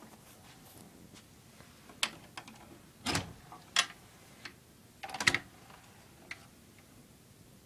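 Irregular clicks and knocks from handling and moving about with a handheld camera, a few sharp ones spread out, the loudest in a short cluster about five seconds in.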